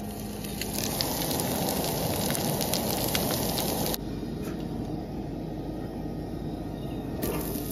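Hot oil sizzling with scattered pops in a cast-iron skillet on a camp stove. About four seconds in the sound drops abruptly to a quieter, duller hiss.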